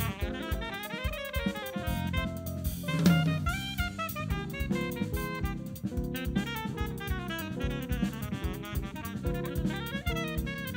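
Live instrumental jazz from a small band: saxophone melody over drum kit, electric bass and keyboard, with a loud drum accent about three seconds in.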